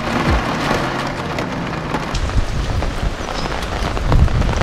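Heavy rain falling on a motorhome: a dense, steady patter with many sharp individual drop hits.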